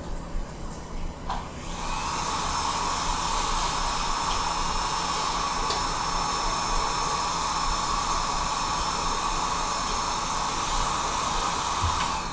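Air blowing from a nozzle over a laptop circuit board: a steady rushing hiss that starts about two seconds in and cuts off just before the end.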